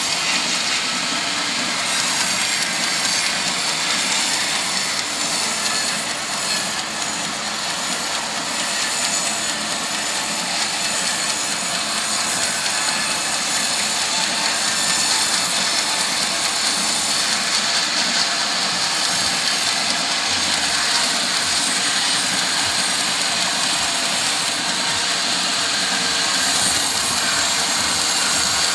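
Portable sawmill running steadily, its engine and saw making a loud, even noise while sawing teak.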